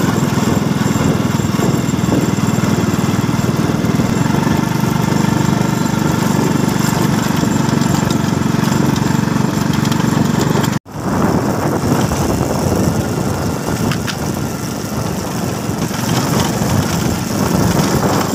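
Motorcycle engine running steadily while riding, heard from on the bike itself, with a momentary dropout about eleven seconds in.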